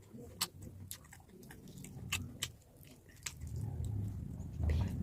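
Close-up mouth sounds of a person chewing pork: wet, sharp smacking clicks at irregular intervals. A low rumble underneath grows louder in the last second and a half.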